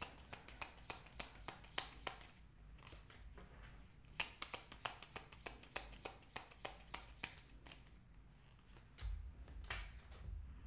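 A deck of tarot cards being shuffled by hand: quick runs of card snaps and clicks, one in the first two seconds and a longer one from about four to seven and a half seconds in, then a low thud near the end.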